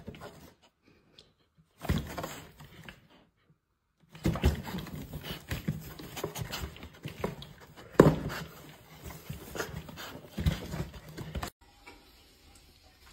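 Puppy snuffling and nosing at a cardboard box, with irregular scrapes and a few louder knocks on the cardboard.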